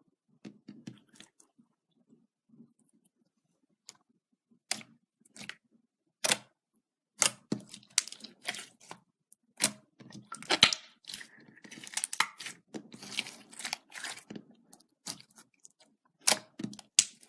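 Slime being squished and poked by hand: irregular sharp clicks and crackles, sparse at first and coming thick and fast from about seven seconds in.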